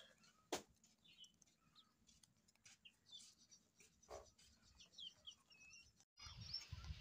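Near silence with faint, scattered bird chirps and a few soft clicks from chickens pecking at grain on dirt.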